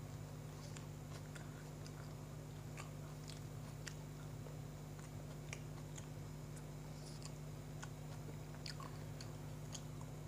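A person chewing a mouthful of sandwich close to the microphone: irregular small crunches and wet mouth clicks, over a steady low hum.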